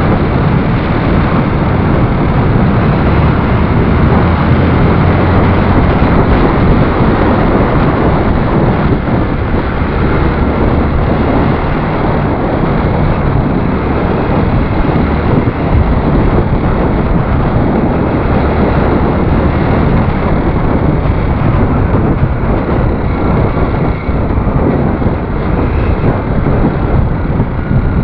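Wind rushing over the microphone of a moving motorcycle, with engine and road noise underneath; loud and steady.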